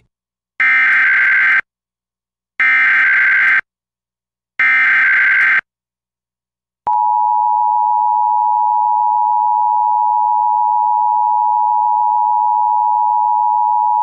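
Emergency Alert System activation for a Required Monthly Test. Three one-second bursts of SAME digital header data sound as a buzzy warble, spaced about a second apart. About seven seconds in, the EAS two-tone attention signal (853 and 960 Hz together) starts and holds steady.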